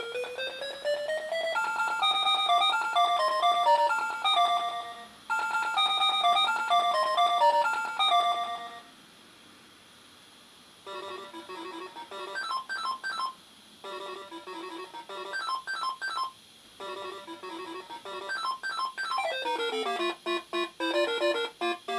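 Electronic sound effects from a Funky Doctor pachinko machine: a rising beep glide, then a simple bleepy melody played twice. After a brief pause about nine seconds in, short beeping jingles repeat over and over.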